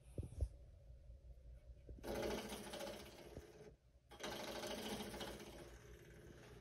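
A puppy gnawing at a small found object with its teeth: two long bouts of fast, scratchy rasping, with a few soft thumps just after the start.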